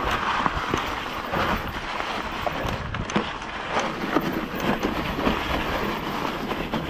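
Bike rolling fast down a leaf-covered forest trail: tyres crunching and skidding over dry leaves and dirt, with many small knocks and rattles from the bike, and wind noise on the microphone.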